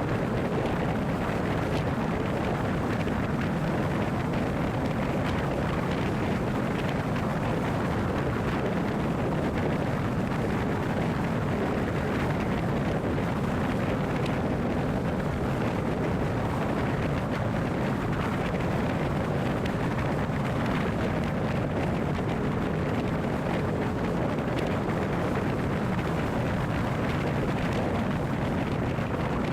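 Steady vehicle noise, an even rumble of engine and road that does not change in level.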